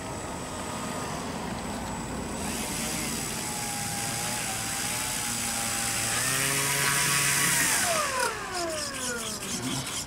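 Electric brushless motor and propeller of a Dynam Sbach 342 RC plane on a 4S battery, taxiing on grass. The whine climbs as throttle is added about six seconds in, over a rushing hiss of air, then glides steadily down as the motor is cut near the end.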